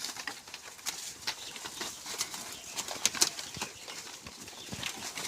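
Goats feeding on a pile of cut leafy branches: leaves rustle and stems snap and crunch in many irregular sharp clicks as the goats tear and chew.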